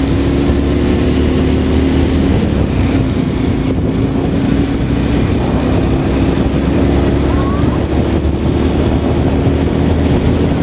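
Steady drone of a vehicle driving along a road: a low engine hum with a held, slightly wavering tone over road and wind noise on the microphone.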